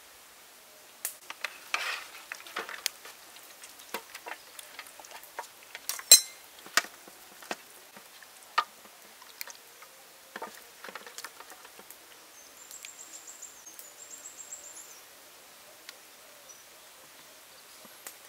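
Scattered clicks, taps and clinks of hands working food in stainless steel trays, with one sharper, louder clink about six seconds in. A faint, high chirping comes twice in the second half.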